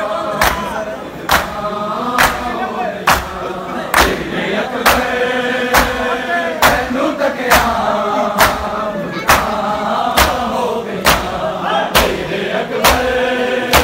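Men chanting a Punjabi noha lament while a crowd of mourners beat their bare chests in unison (matam). The chest-beating makes a sharp collective slap about once a second, setting the rhythm under the chant.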